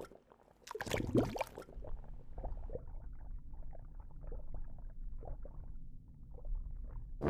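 A splash about a second in, followed by a steady low bubbling of water, as of a diver going under.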